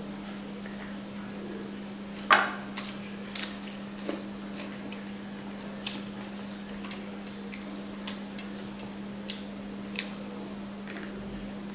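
Eating by hand: scattered sharp clicks and taps from fingers working rice on a steel plate and from chewing, the loudest a little over two seconds in, over a steady low hum.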